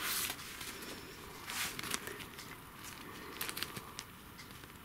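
Small plastic zip-lock bags of diamond-painting drills rustling and crinkling in a few short bursts as they are picked up and handled.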